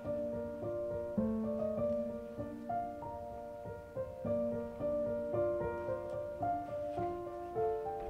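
Background piano music playing a slow melody of held notes.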